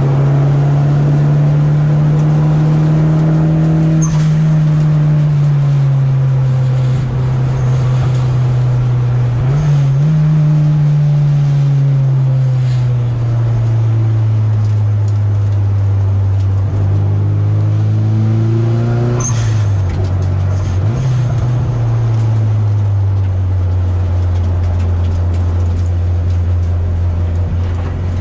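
Nissan 200SX's turbocharged four-cylinder engine and exhaust heard from inside the stripped cabin while driving at moderate revs. The engine note dips and recovers about ten seconds in and again about twenty seconds in, then settles at a lower, steady pitch near the end.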